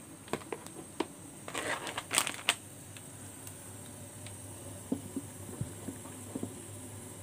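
A few sharp clicks and a brief rustle in the first couple of seconds, then a pot of water at a rolling boil bubbling quietly, with scattered small pops.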